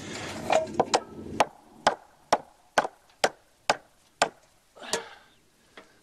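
Hammer striking a wooden 2x6 board: about a dozen sharp blows, steady at roughly two a second, driving the board up toward level.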